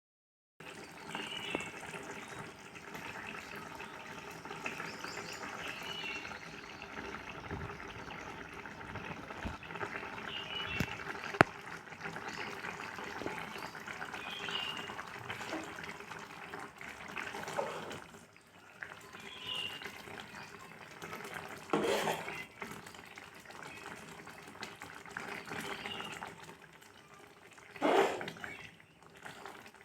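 Pan of Maggi noodles cooking on the stove: liquid bubbling and hissing, with short squeaky chirps scattered throughout and two louder brief bursts about 22 and 28 seconds in.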